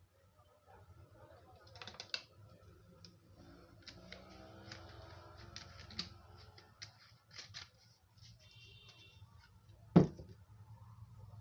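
Handling noise as the petrol container is worked to draw off some fuel: scattered light clicks and taps of small objects, with one sharp knock about ten seconds in.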